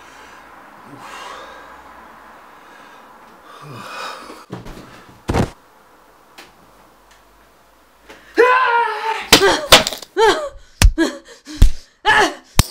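A single heavy blow about five seconds in, then from about eight seconds loud high-pitched cries and gasps mixed with several more sharp blows as a hard black box is brought down on a man's head.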